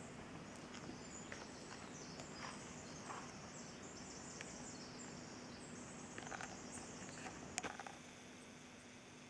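Juvenile northern spotted owls giving faint, high-pitched hissing begging calls, one after another. A few soft clicks come through, with a sharper snap near the end.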